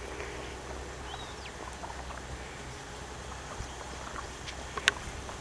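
Quiet outdoor background: a low steady rumble with a few faint ticks, a short chirp about a second in, and one sharp click near the end.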